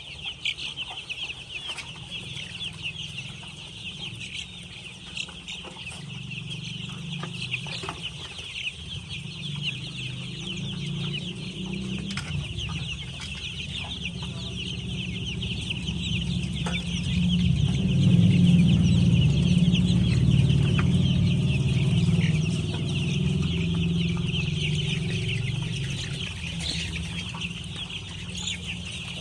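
A large flock of laying hens clucking continuously, many birds calling over one another. Under the clucking a low rumble builds and is loudest about two-thirds of the way through.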